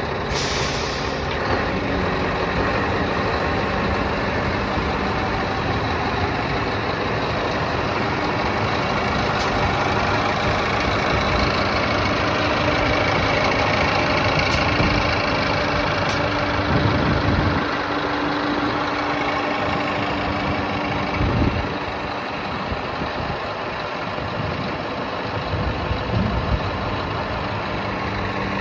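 Scania R560 tipper truck's V8 diesel running steadily while driving the hydraulics that raise the tipper body. A steady hum gets a little louder midway and eases about two-thirds through, with a couple of dull thumps.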